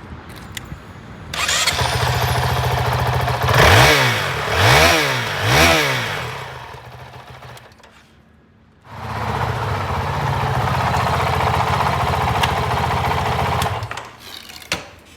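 2021 Honda CRF450L's 449 cc single-cylinder four-stroke engine running: it catches about a second in, idles, is revved three times in quick succession and falls away. After a short gap it idles steadily again for about five seconds, then stops.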